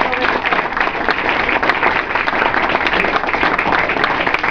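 A room full of guests applauding, many hands clapping steadily.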